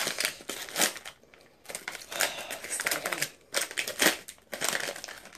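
Plastic snack wrapper crinkling and crackling as it is torn open by hand, in several bursts with short pauses.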